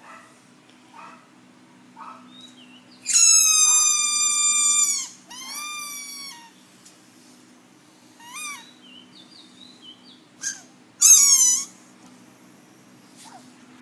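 Siberian husky howling and whining in a high voice. It gives a few short whines, then a loud howl of about two seconds that drops in pitch at the end, and a shorter howl right after. A few short yelps follow, and a last loud howl comes near the end.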